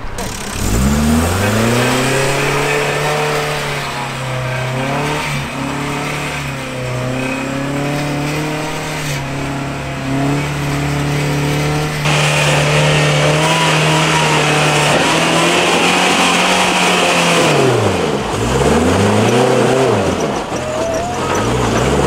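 Toyota 22RE four-cylinder engine in a first-generation 4Runner revving hard under load as the truck claws up a steep sand hill. The revs climb about a second in and hold high, then drop and rise again twice near the end as the driver works the throttle.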